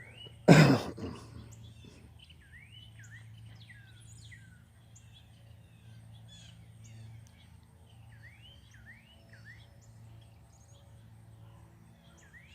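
Small songbirds chirping repeatedly in short slurred notes, over a steady low hum. A loud thump about half a second in, likely the microphone being bumped or handled.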